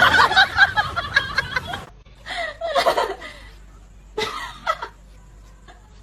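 People laughing in short bursts, loud at first and then in a few quieter fits.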